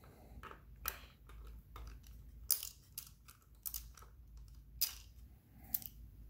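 Socket wrench with a long extension working the radiator mounting bolts of a Suzuki DRZ400S: a handful of separate sharp metallic clicks and clinks at uneven intervals.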